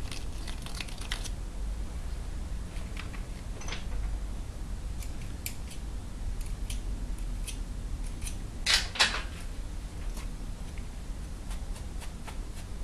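A small metal hand tool clicks and scrapes in a freshly tapped rocker-stud hole in a motorcycle cylinder head, as it is cleaned out. Scattered light metallic clicks from handling tools follow, with a louder double clink about nine seconds in, over a low steady hum.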